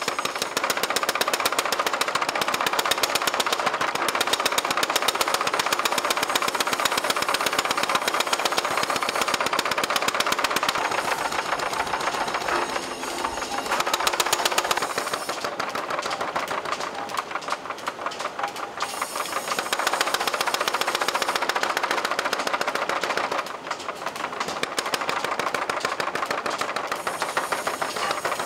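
Mechanical power hammer pounding a red-hot steel bar in a rapid, steady rhythm, easing briefly a couple of times.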